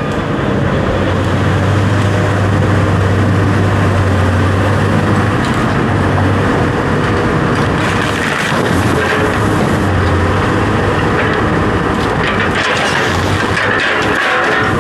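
A running motor with a steady low hum and dense mechanical noise. The hum weakens and breaks up about halfway through, with a few knocks near the end.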